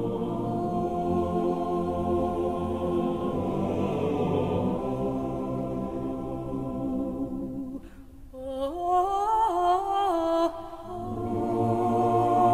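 Unaccompanied choral chant: voices hold a sustained chord, drop away about eight seconds in while a single voice sings a short stepping phrase, and then the full choir comes back in.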